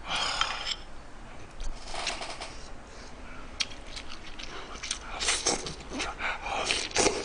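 Close-up eating sounds: slurping and chewing mouthfuls of spicy braised chicken with aged kimchi, with a few sharp clicks, the sounds growing busier in the second half.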